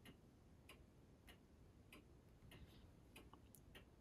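Near silence with faint, even ticking, a little under two ticks a second.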